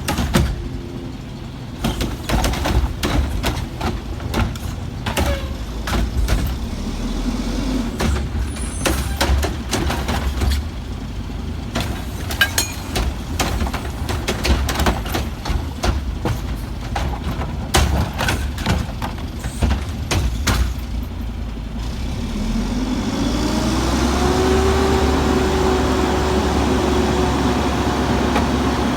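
Heil garbage truck's diesel engine running low under a long string of sharp knocks and clanks. About twenty-two seconds in the engine revs up, holds at a steady higher pitch, then drops back near the end.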